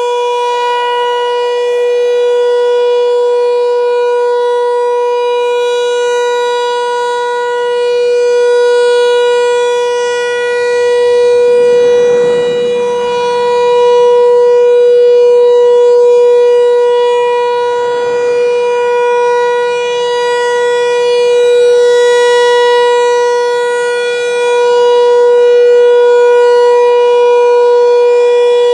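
American Signal T-128 outdoor warning siren sounding a steady single tone at full speed, its loudness swelling and fading every few seconds as the rotating head sweeps past.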